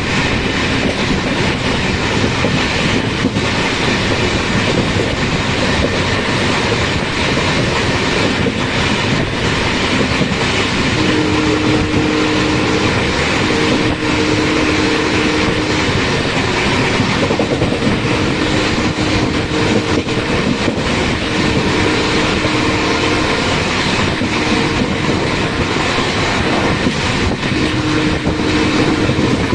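Express passenger train running at about 110 km/h, heard from an open coach doorway: a steady rush of wind and wheel-on-rail noise. In the second half, a pair of low steady notes sounds on and off several times.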